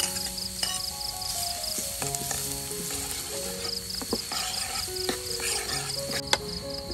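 Minced garlic sizzling steadily as it fries in hot oil in a pan, stirred with a ladle, with a few sharp knocks of the ladle against the pan in the second half.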